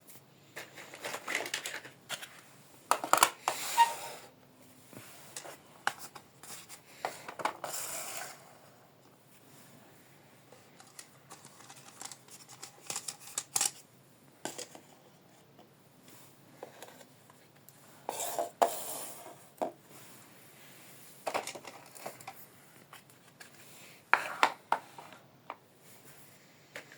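Toy kitchen set and its packaging handled: irregular rustles, crinkles and sharp clicks of plastic and paper, in bursts with quieter gaps between them.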